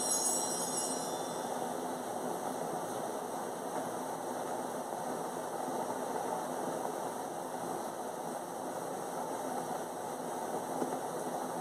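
Bells jingling, fading out about a second in, then a steady, even background noise in the room with no distinct events.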